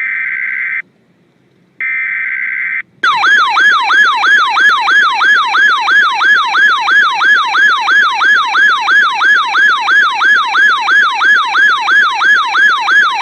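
Two one-second bursts of Emergency Alert System SAME header data, a harsh buzzing data tone, come from a weather radio receiving NOAA Weather Radio. About three seconds in, the radio's electronic alert siren takes over, a falling warble repeating about two and a half times a second, and it stops abruptly near the end.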